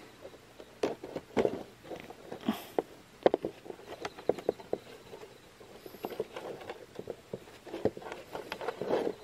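Steel wire cable of a Shishikabu boar foot snare being pulled and adjusted through its metal fitting by gloved hands: irregular small clicks and clinks of wire and metal, with glove rustling between them and a louder run of handling noise near the end.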